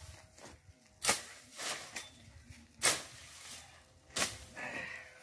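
Machete chopping at something on the ground: three hard blows roughly a second and a half apart, with lighter strokes after the first.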